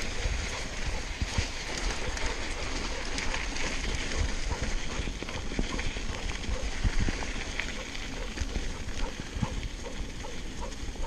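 2014 Trance Advanced SX mountain bike ridden over a sandy, rutted dirt trail: steady tyre noise on sand and dirt, with irregular knocks and rattles from the bike as it runs over bumps.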